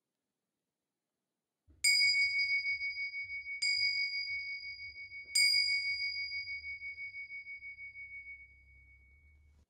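A small high-pitched bell struck three times, about a second and three quarters apart, each ring left to die away; the last fades out slowly.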